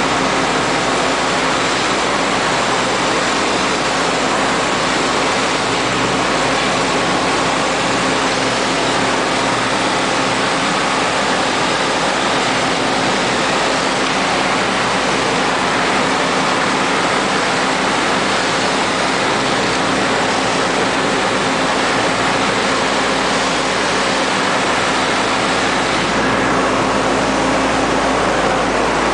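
Steady, loud rushing hiss of wet-mix shotcrete being sprayed from the nozzle of a Sika–Putzmeister spraying machine, with the machine's engine and pump running beneath it.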